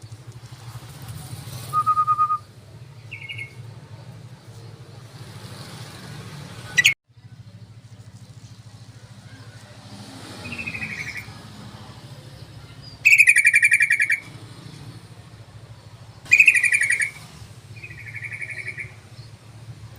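Sooty-headed bulbul (trucukan) calls: a series of short chirping phrases, the two loudest about two-thirds of the way through, over a steady low hum.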